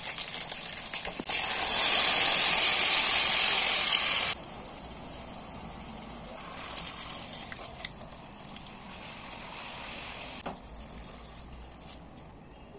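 Stuffed green peppers sizzling in hot oil in a pot, then a loud, steady sizzling hiss for about three seconds as the liquid goes into the hot pan. After that comes a quieter stretch of pouring and simmering.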